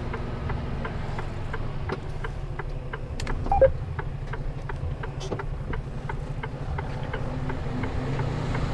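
Mercedes-Benz Antos 1824 lorry's diesel engine idling, heard from inside the cab, with a regular ticking of about two clicks a second from the turn indicator. A brief squeak about three and a half seconds in.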